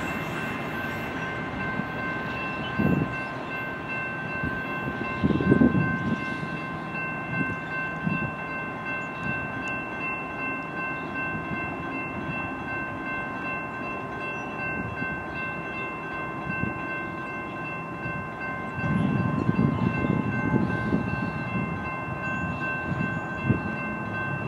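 Union Pacific freight train of autorack cars rolling away on the rails: a steady low rumble of wheels with louder surges of clatter a few times, under a steady high-pitched tone that holds the whole time.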